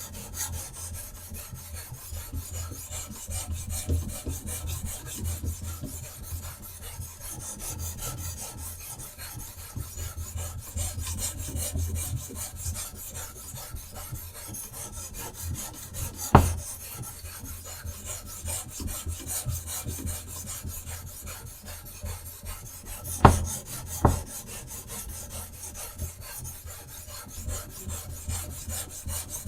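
Whetstone of a guided knife-sharpening system rasping along a knife blade in quick back-and-forth strokes. One sharp knock comes just past halfway, and two more close together later on.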